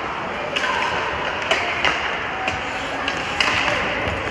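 Ice hockey play: skate blades scraping on the ice under a steady rink hiss, with a scatter of sharp clacks from sticks and the puck.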